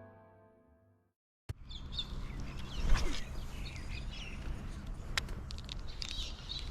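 The tail of a piano chord fades out in the first second; after a short silence, outdoor ambience comes in with small birds chirping and a few sharp clicks or knocks.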